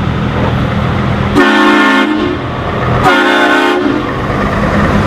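Heavy truck engine running with a steady low rumble. Two horn blasts sound over it, each under a second long, about a second and a half in and again about three seconds in.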